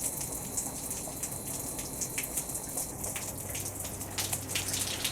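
Steady rain falling, with many individual drops tapping close by.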